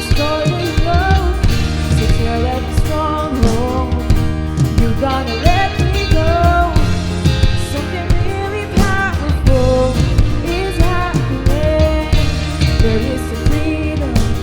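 A contemporary worship song with a sung melody over drums, bass and guitar, playing steadily.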